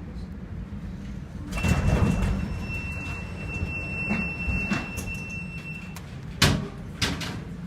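Steady low drone of a boat's engine. About a second and a half in, a wave crashes against the boat in a loud rush of water. Near the end there are two sharp bangs, half a second apart.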